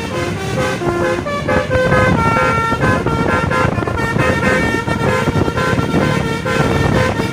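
Tour bus telolet horn, a basuri multi-tone air horn, playing a quick melody of short stepping notes with one longer held note a couple of seconds in, over steady low noise.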